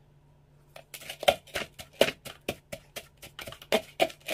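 Rapid, slightly uneven series of sharp knocks, about four a second, starting about a second in: a kitchen utensil striking repeatedly while food is prepared.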